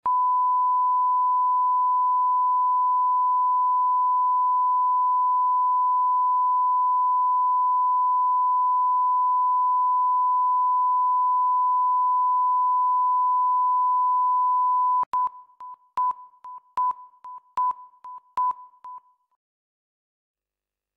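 Broadcast line-up test tone accompanying colour bars: one steady, loud tone held for about fifteen seconds, then broken into about five short beeps of the same pitch, just under a second apart.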